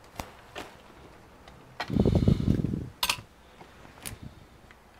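Handling noise at a repair bench: a loud, low rustle of clothing brushing close to the microphone about two seconds in, with a few light clicks and taps as a power lead and plug are handled.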